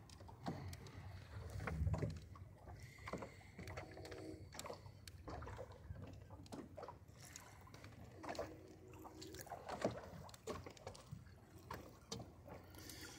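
Faint water lapping and gurgling along the hull of a small wooden sailboat moving slowly in light wind, with scattered small knocks and brief creaks from the boat and its rig.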